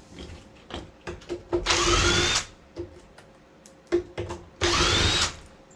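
Power drill run in two short bursts, its motor whine rising in pitch each time, backing out the screws of an old doorknob. Light clicks and knocks of handled hardware come between the bursts.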